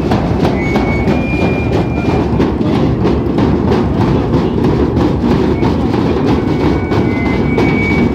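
Many large double-headed drums beaten with sticks all at once, a loud, dense, fast rhythm that runs without a break.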